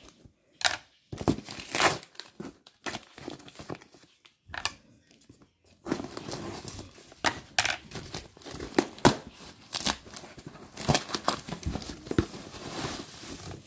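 Packing material being torn and crinkled by hand as a shipping box is unpacked: scattered rips and rustles, a short lull about four seconds in, then denser crinkling.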